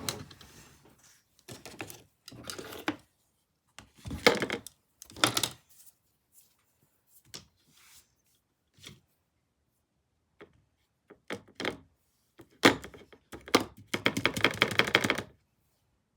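Painting supplies being handled on a tabletop: scattered knocks and clicks, with short scraping or rattling bursts a few seconds in and a longer run of quick rattling strokes near the end.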